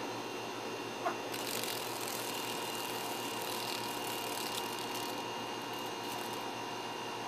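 Dragonfly wings buzzing and rattling against a porch lamp for about four seconds, after a short chirp about a second in, over a steady hum and hiss.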